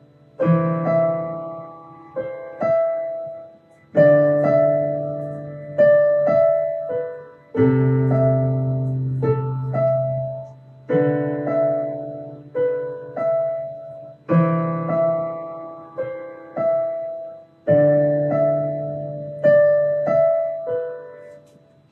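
Piano playing a slow, simple piece: chords and melody notes struck every half second to second and a half, each left to ring and fade. The playing stops just before the end.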